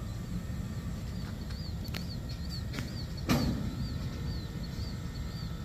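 Freight train boxcars rolling past: a steady low rumble of wheels on rail, with a few sharp clicks and one louder bang about three seconds in. A faint high chirping repeats a few times a second throughout.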